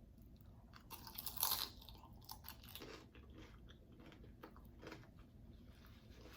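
Crunchy homemade taco shell being bitten and chewed, a loud crackling bite about a second in, then quieter crunching.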